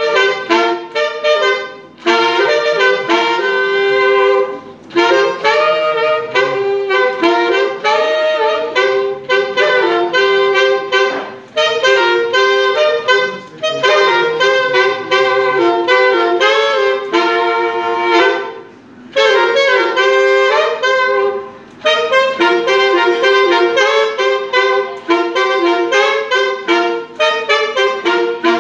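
One player blowing two saxophones at once, sounding two notes together as he plays a melody in parallel harmony. The melody comes in phrases with short breaks between them.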